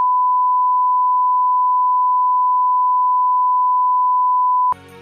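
Steady single-pitched test tone, the line-up tone that plays with colour bars, cutting off suddenly near the end, when soft music starts.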